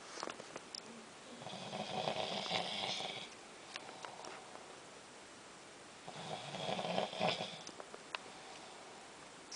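Snoring: two long snores about four and a half seconds apart, each lasting about two seconds, with a few faint clicks between them.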